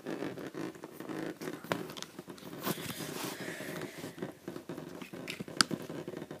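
Handling noise from an iPad being moved and positioned by hand: irregular rustling and scraping with scattered small clicks, and one sharper knock about five and a half seconds in.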